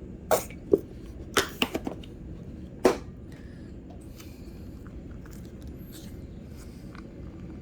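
Kitchen handling sounds while condiments are mixed: a few sharp clicks and rustles in the first three seconds, then only a steady low background hum.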